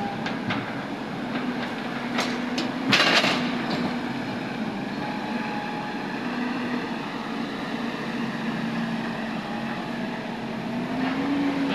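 JCB tracked excavator's diesel engine running steadily with a steady hum, a few sharp metallic clanks, and a loud clatter about three seconds in.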